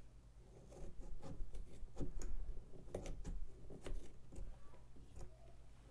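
Pumpkin being carved with small knives: irregular light ticks and scrapes as blades cut and pick at the skin and flesh, several a second in places.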